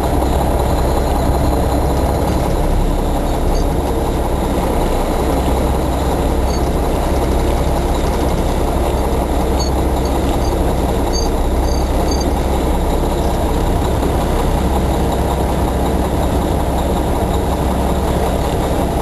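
Roll-off truck's engine running steadily, a deep unchanging rumble.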